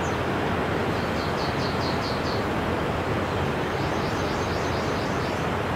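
A small bird calls twice, each a quick run of about seven short high chirps, the first about a second in and the second near the end, over a steady rushing background noise.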